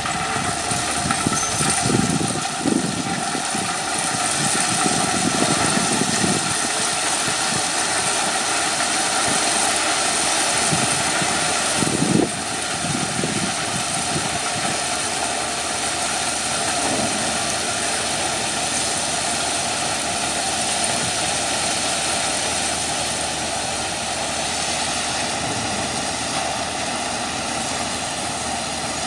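Diesel locomotive engine running steadily while hauling ballast hopper cars, with a few low rumbling bursts, the strongest about twelve seconds in.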